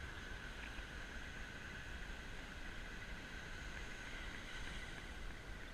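Faint, steady hiss of surf and wind along an open beach, with a thin steady high tone over it and no distinct events.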